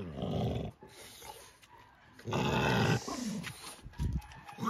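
Low vocal sounds from a dog: a short pitched one at the start and a rougher, longer one about two seconds in, with a short low knock near the end.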